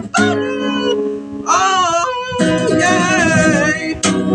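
Music: a song with guitar and singing, the voice holding long, bending notes without words.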